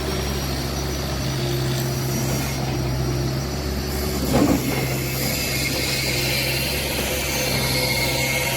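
Excavator's diesel engine running steadily under working load, with a brief thump about halfway through.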